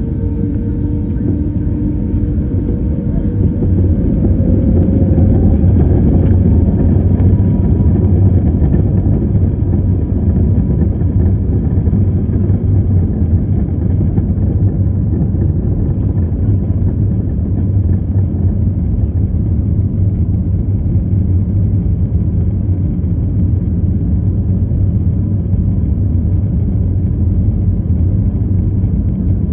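Airbus A321neo engines and cabin rumble heard from a window seat inside the cabin as the jet rolls on the ground. The noise swells and an engine tone rises slightly over the first few seconds, then holds steady.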